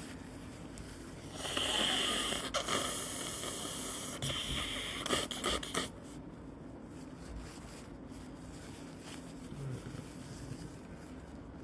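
A person's loud, noisy breathing through a stuffy nose as sick-day sounds: one long breath of about three seconds starting a second in, then a shorter one right after. After that the breathing stops, leaving a quiet room with a faint steady hum.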